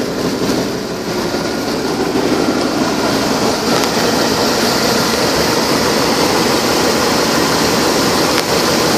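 Engine of a 1997 Chevrolet Silverado 1500 pickup running steadily, heard close up under the hood. It gets a little louder about two seconds in and then stays even.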